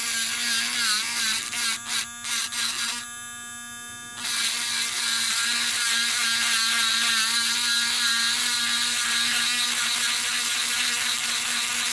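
Handheld electric rotary grinder whining as it grinds the metal axle ring of a Hot Wheels die-cast car. The grinding comes and goes in short touches at first, eases off briefly, then runs steadily from about four seconds in.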